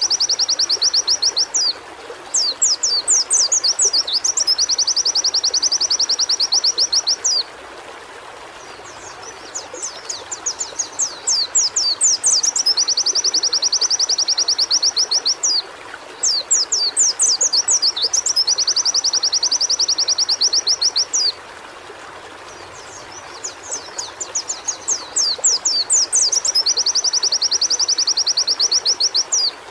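White-eye (pleci) song: bouts of quick, high sweeping notes that run into a long, rapid, even trill lasting a few seconds, about four times with short pauses between. A steady hiss like running water sits underneath.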